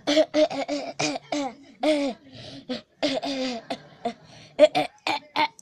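A person laughing in a run of short, breathy bursts.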